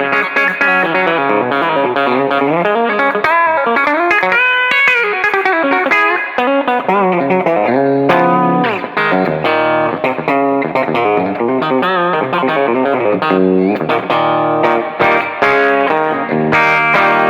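Westcreek Helios electric guitar played clean through a Quilter amp with a compressor pedal on and a little amp reverb: a mix of chords and single-note licks with string bends.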